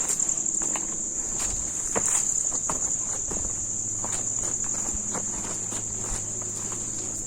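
Steady high-pitched insect drone. Irregular footsteps on stone stairs sound beneath it.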